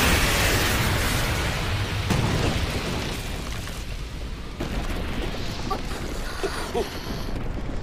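Anime sound effect of a huge magic energy blast: a deep explosion rumble, loudest at the start, that fades gradually, its hiss dropping away about halfway through and leaving a lower rumble.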